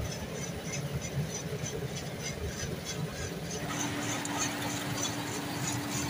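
Kubota rice combine harvester running while cutting, heard from the cab: a steady engine and machinery drone with a fast ticking at about three or four a second. About two-thirds of the way through, the sound shifts and a steady hum comes in.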